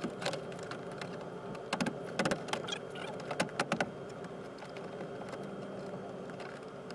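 Ford Econoline van's plastic door trim panel being fitted back onto the door by hand: a scattered run of light clicks and knocks as the panel is pressed into place, thickest about two and three and a half seconds in.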